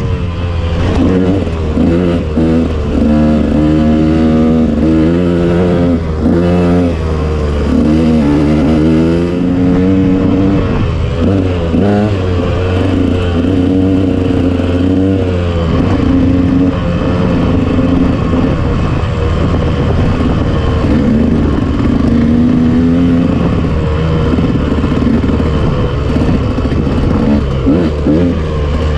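KTM off-road motorcycle engine running under riding load, its pitch rising and falling again and again as the throttle is opened and closed.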